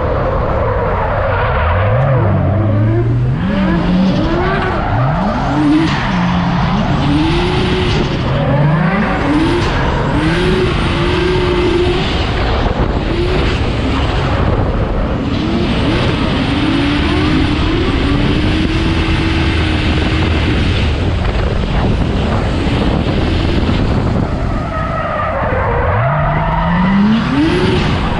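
Nissan Skyline R32's engine revving hard on track, its pitch climbing and dropping back again and again through the corners, with tyres squealing and skidding. Near the end the revs dip briefly and then climb again.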